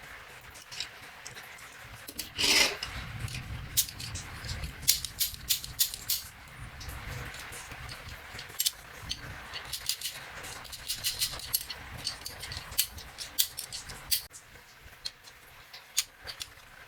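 Small die-cast toy truck being handled and moved: irregular clicks and rattles of small hard parts, with a louder scrape about two and a half seconds in followed by a low rumble.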